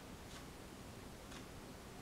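Faint, evenly spaced ticks, about one a second (two in this stretch), over a steady low hiss.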